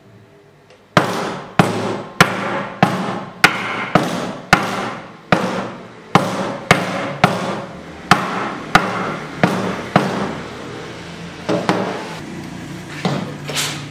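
Steel claw hammer striking the face of a softwood board on a wooden workbench, denting it. The blows come about two a second, each with a short ring, and grow fewer and lighter near the end.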